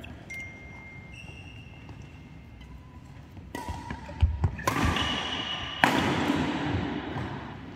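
Badminton rally: rackets strike the shuttlecock with sharp cracks about three times in the second half, each ringing out in the hall, with low thuds of footfalls and short squeaks of shoes on the court mat.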